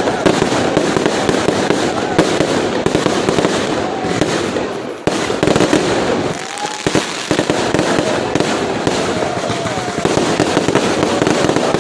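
Fireworks going off in a dense barrage: continuous rapid popping and crackling from many shells at once, with a brief lull about five seconds in.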